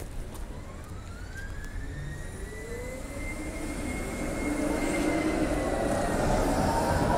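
V3A-93-CH-PPC articulated tram coming alongside at close range. The whine of its electric drive rises in pitch over the first few seconds and then holds, while the rumble of its wheels on the rails grows steadily louder.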